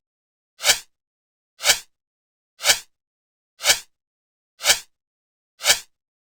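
Short, sharp clicks repeating evenly about once a second, with silence between them.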